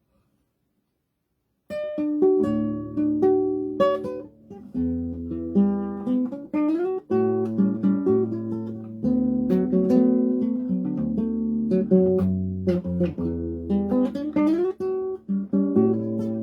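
Acoustic guitar playing a choro, a plucked melody over a moving bass line, starting about two seconds in.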